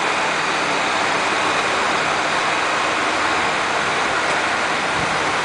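Vacuum leak testing machine running mid-cycle: a steady, even hiss with a faint low hum underneath.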